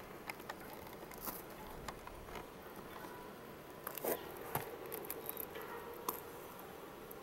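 Faint scattered clicks and rustles of cats grooming and tussling close by: licking and fur brushing, irregular and soft.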